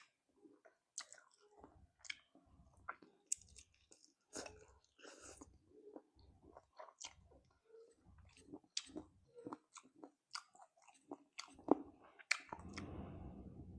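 Close-miked chewing and biting of spicy chicken feet: irregular wet mouth clicks and crunches, with a longer, duller noise lasting about a second near the end.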